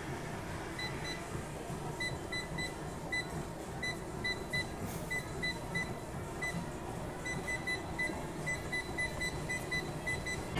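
Short, high electronic beeps from a cardio machine's control panel, about two dozen in quick irregular clusters as its buttons are pressed, over a steady low hum of gym room noise.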